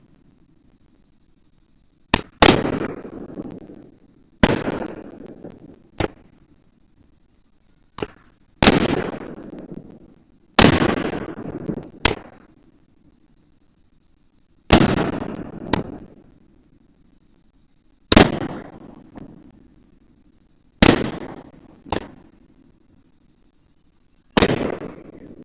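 Aerial firework shells bursting one after another, a dozen or so sharp bangs about every two seconds, each trailing off in a long echo. Several bangs are followed by a smaller second crack.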